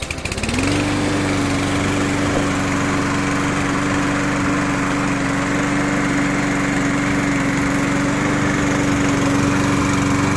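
STIHL RM 248 T petrol lawn mower's single-cylinder four-stroke engine starting on its first start from new: it catches right at the start, speeds up within the first second, then runs at a steady speed.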